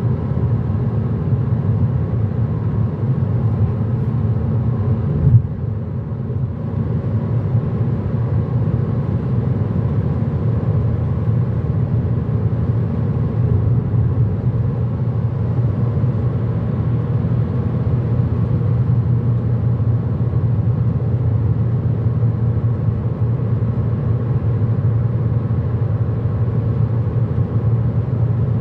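Steady engine and tyre rumble of a car driving at speed, heard inside the cabin. A single brief knock about five seconds in.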